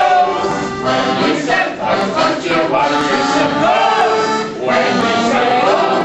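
Music with singing voices, several people singing together over accompaniment.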